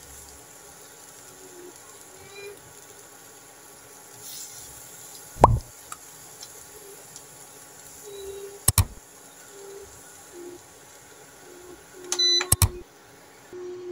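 Cooking eggs being worked with a silicone spatula in a rectangular nonstick pan, with a few sharp knocks of the spatula against the pan. Near the end an induction cooktop's control panel beeps as its button is pressed.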